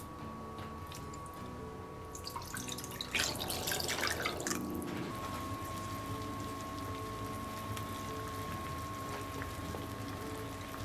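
Water splashing into a stainless steel pot of raw chicken pieces for a few seconds, then the pot of water bubbling steadily at a boil.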